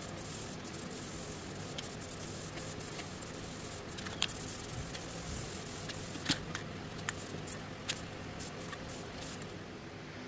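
Aerosol spray paint can hissing steadily as paint is sprayed onto a golf cart body, with a few sharp clicks.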